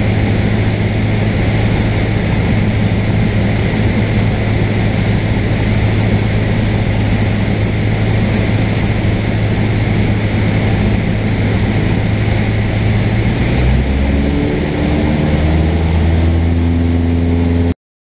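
Cessna 172's engine and propeller droning steadily as heard inside the cockpit in flight. About fourteen seconds in, the pitch of the drone shifts, and near the end the sound cuts off abruptly.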